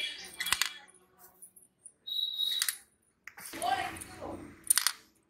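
Plastic Connect 4 discs dropped into the upright grid, three sharp clacks a couple of seconds apart.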